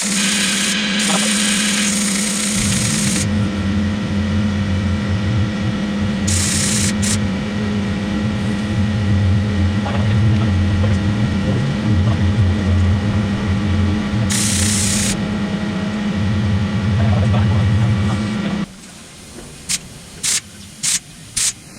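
A motor-driven machine runs steadily with a constant hum and a fast-pulsing low rumble underneath, broken by a few bursts of hissing. It cuts off abruptly near the end, leaving a few light clicks.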